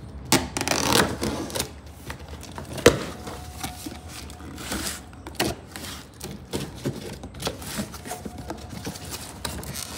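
A cardboard box being opened: a cutter slitting packing tape, then flaps and paper inserts pulled open, with scratchy rustling and scattered taps and knocks. The loudest is a single sharp knock about three seconds in.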